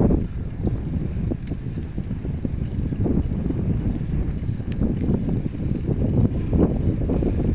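Wind buffeting the microphone of a phone carried on a moving bicycle: a steady low rumble, with scattered faint ticks and rattles.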